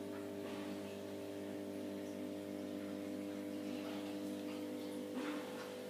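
Aquarium pump humming steadily, with water bubbling faintly through the tank.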